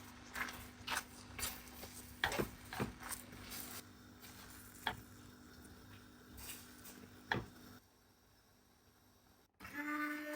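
Scattered light taps and knocks of kitchen utensils and a bowl. Near the end an electric mixer switches on and runs with a steady whine, as the beating of the eggs begins.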